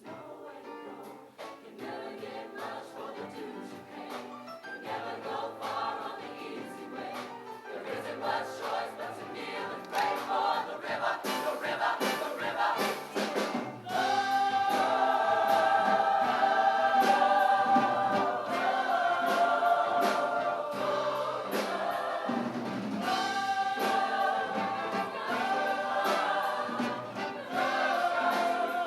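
A high school show choir singing. About fourteen seconds in it swells louder into long held chords.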